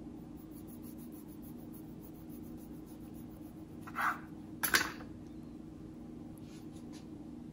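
Chef's knife cutting through a rolled coil of scallion pancake dough on a wooden cutting board: two short cutting sounds about four and five seconds in, the second louder and sharper as the blade meets the board. A steady low hum runs underneath.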